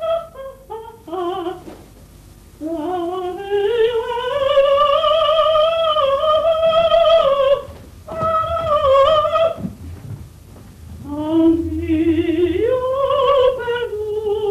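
Female operatic soprano voice singing with wide vibrato: short notes stepping down at first, then a long note that slides up and is held high. Later a lower note leaps up high.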